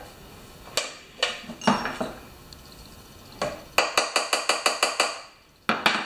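Hand tools clinking against the carburetor of a Honda GCV190 mower engine. A few scattered metal clinks come first, then a quick, even run of about nine clicks at roughly seven a second, and another clatter near the end.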